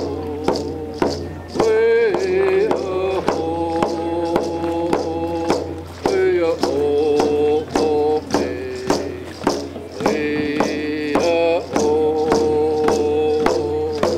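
A man singing a traditional Native American song, the one used for closing the table, while beating a hide hand drum with a beater in a steady beat about twice a second.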